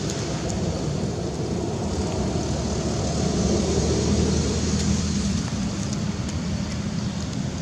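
A motor engine running steadily, growing louder through the middle and easing off again, as if a vehicle passes.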